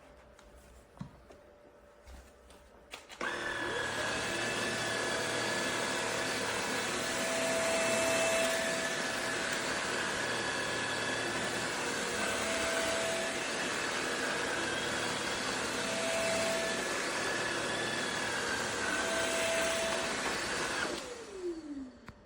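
MFJUNS cordless stick vacuum cleaner switched on about three seconds in, its motor spinning up with a rising whine and then running steadily with a whining hum. Near the end it is switched off and winds down with a falling whine.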